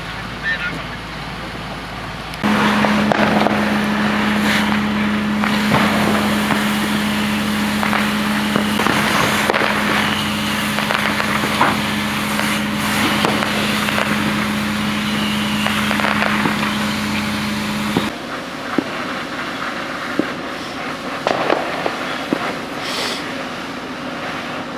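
Car fire being fought with a hose: a fire engine's pump running with a steady hum under rushing, hissing noise and scattered sharp cracks. The loud hum starts abruptly a couple of seconds in and drops away abruptly at about three-quarters of the way through, leaving the noise and cracks.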